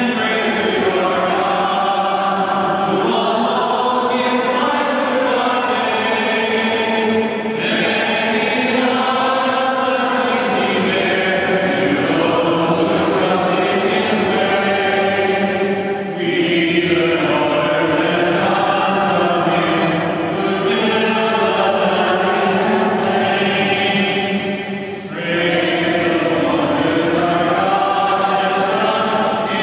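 A congregation singing together in long held phrases, with short breaks for breath about every eight or nine seconds.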